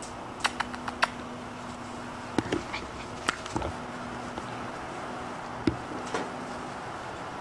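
Small puppies squeaking and whimpering in short bits, among scattered sharp clicks and taps, over a steady low hum.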